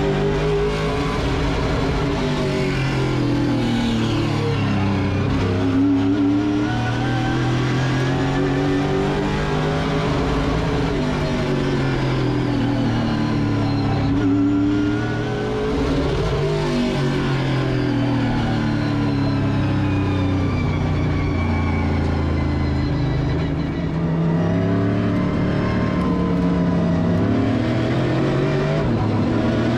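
Late model stock car's V8 racing engine at full race pace, its pitch repeatedly climbing as it revs up, then dropping back, every few seconds.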